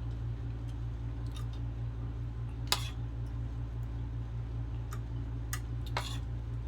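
A few light clicks and clinks of tableware, about three in all, over a steady low hum.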